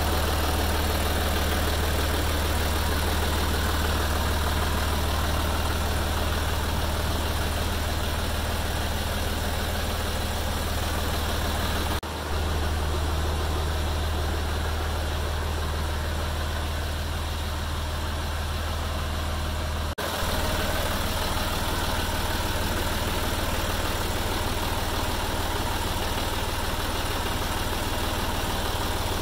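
John Deere 5320N tractor's diesel engine running steadily at idle with a constant low hum, briefly interrupted twice.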